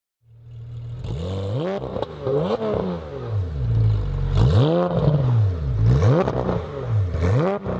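Car engine revved over and over, its pitch climbing and falling back about once a second.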